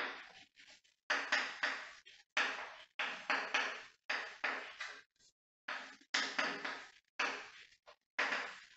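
Chalk writing on a chalkboard: a quick run of sharp taps and scrapes as each letter is stroked out, in clusters with short pauses between words.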